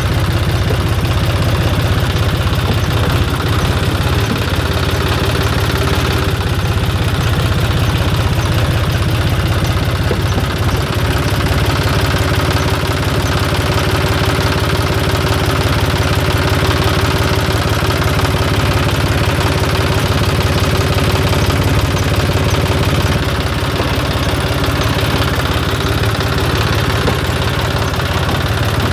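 John Deere 5041C tractor's three-cylinder diesel engine running steadily near idle as the tractor creeps forward; its note shifts slightly about three-quarters of the way through.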